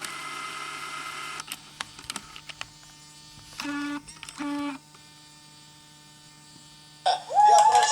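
Sony DCR PC115E MiniDV camcorder mechanism: a short whirr, a run of small clicks, then two brief buzzy tones about half a second apart, and near the end a louder pitched sound that wavers and slides.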